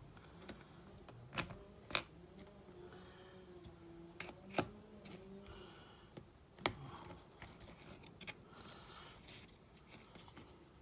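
Scattered light clicks and taps of small parts and tools being handled, a few sharp ones spaced a second or two apart.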